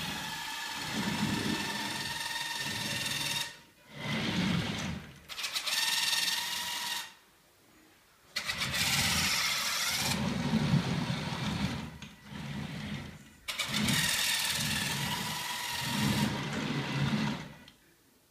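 Small wheeled robot's electric drive motors whining as it drives, in about half a dozen runs of one to four seconds that stop and start with short pauses between moves.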